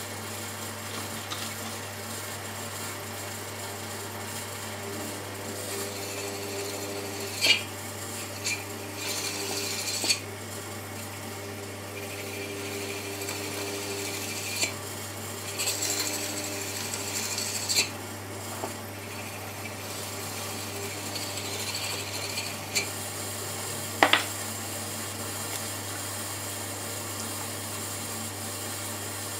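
Shimpo RK10 electric potter's wheel running with a steady motor hum, while hands rub against the spinning wet stoneware bowl in several short scraping passes. A few sharp clicks break through, the loudest about a third of the way in and again near the end.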